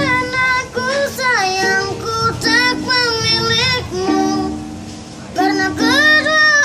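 A child busker singing a plaintive, drawn-out melody with wavering held notes over a strummed stringed-instrument accompaniment. The voice drops away briefly just past the middle and comes back in.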